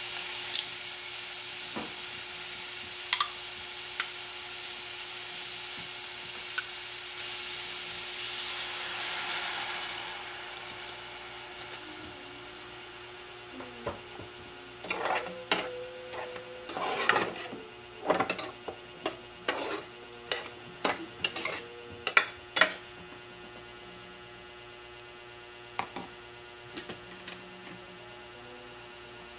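Pork sizzling in a pot with fresh soy sauce, the hiss easing after about ten seconds; then, around the middle, a run of clinks and knocks of a spoon stirring the meat against the metal pot.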